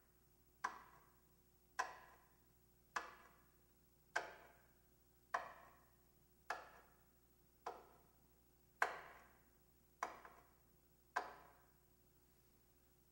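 Ten slow, evenly spaced knocks, about one every 1.2 seconds, each dying away in an echo. They stop near the end.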